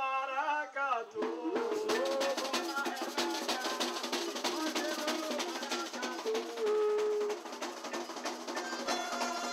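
Music with busy percussion and drums under pitched instruments; a voice is heard briefly in the first second.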